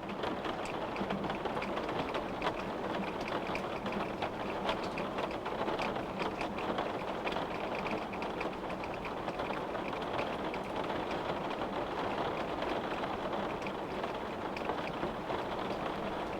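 Steady rain pattering on a window pane: an even hiss of rainfall with many small drop ticks.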